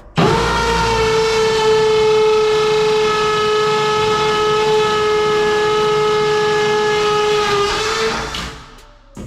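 One long horn blast on a single steady pitch, starting suddenly and holding for about eight seconds before it fades out.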